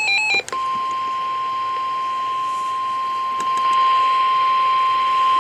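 NOAA Weather Radio warning alarm tone: a single steady 1050 Hz beep held without a break over radio hiss, starting about half a second in after a brief chirp of stepped electronic tones. The tone signals that a warning message follows.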